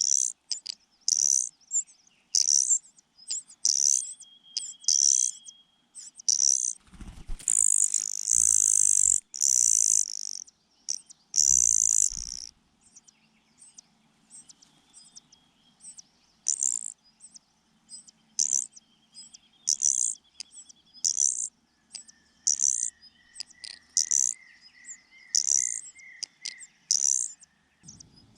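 Nestlings begging, among them a cuckoo chick: high, thin calls repeated in quick bursts, a few each second. A louder stretch of calling with rustling and low thuds comes about seven to twelve seconds in, and a softer, lower trill runs in the last few seconds.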